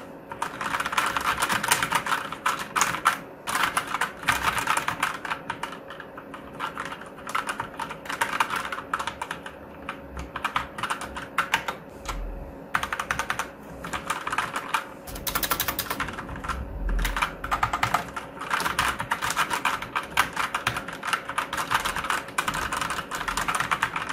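Typing on an Everest KB-GX8 Redcore mechanical keyboard with red switches: fast runs of soft keystrokes broken by short pauses. These are linear switches, quiet for a mechanical keyboard.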